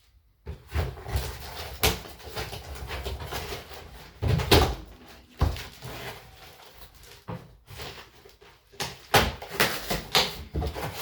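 Unboxing handling noise: a cardboard box and new luggage being moved and opened, with irregular rustling and several knocks and thumps, the loudest about four seconds in and again near the end.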